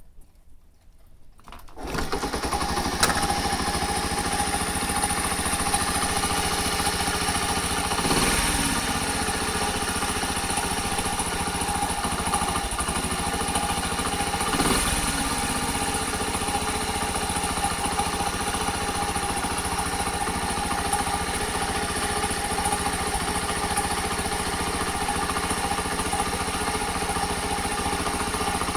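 Honda Super Cub 50's small single-cylinder four-stroke engine starting about two seconds in, then idling steadily and swelling briefly twice. The owner suspects it is making an abnormal noise.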